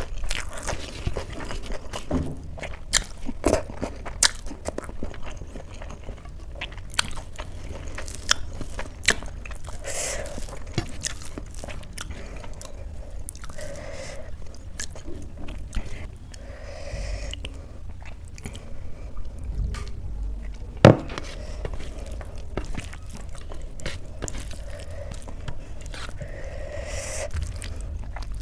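A person chewing and biting food close to the microphone, with wet mouth clicks and crunches throughout. One sharp click about two-thirds of the way through.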